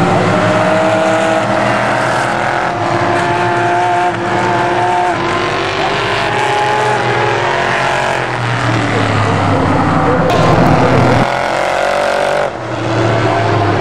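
Sports-prototype and GT race cars passing at speed, engines at high revs with their pitch rising and falling as they go by. The sound changes abruptly a few times, and there is some tyre squeal.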